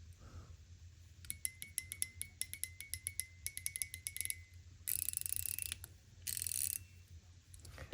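Metal mechanical fidget push-slider (EDC push card) clicking. First comes a run of sharp clicks with a faint ringing tone, then two short, very dense rattling bursts of clicks.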